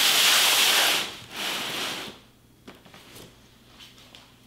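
Large cardboard box sliding across a stone countertop: a scraping rub in two pushes, about a second and then half a second long, in the first two seconds.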